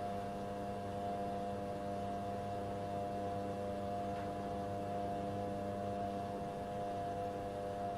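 Metal lathe running steadily during a runout check on a live centre, a steady motor hum made of several level tones over a light hiss.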